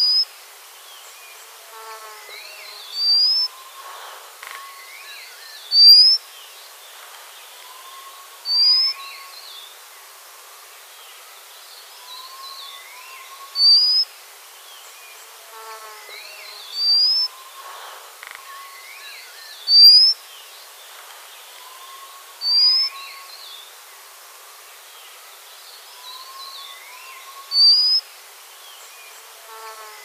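White-capped redstart calling: a thin, rising whistle, short and loud, repeated every few seconds. Softer bird whistles and a falling run of notes sound underneath.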